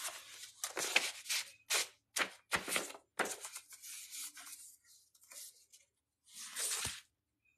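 Paper rustling and crinkling as a card or sheet of paper is handled: a quick run of short rustles in the first three seconds or so, then fewer, with one more rustle near the end.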